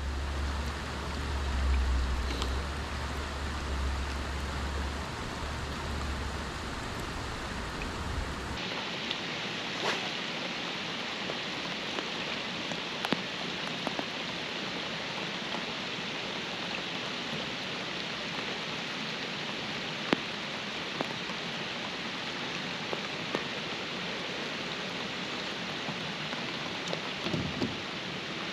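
Steady rain falling, with scattered raindrops ticking close by. A low rumble underlies the first third and stops abruptly about eight seconds in.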